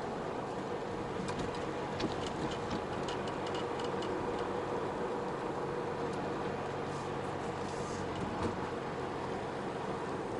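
Car driving steadily on a paved road, heard from inside the cabin: a steady engine hum with tyre noise, and scattered light ticks now and then.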